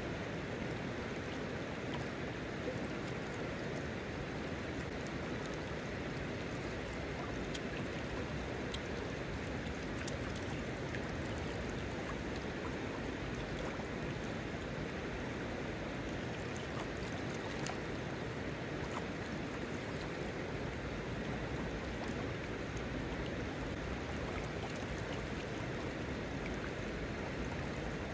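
Shallow river running steadily over a rocky bed: a constant, even rush of water.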